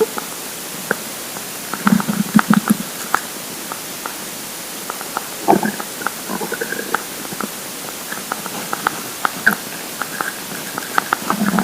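An empty stomach rumbling with hunger, close to the microphone: irregular bursts of low gurgling about two seconds in, again around five and a half seconds, and near the end, with scattered small pops and clicks between them over a steady hiss.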